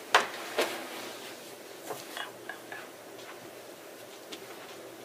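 Two sharp clicks in quick succession, then a scatter of softer clicks and taps with a few brief small tones, and one more faint click later on.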